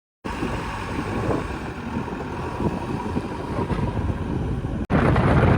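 Diesel engines of a backhoe loader and tractor at work, a rough low rumble with wind buffeting the microphone. It starts abruptly, drops out for an instant about five seconds in, and comes back louder.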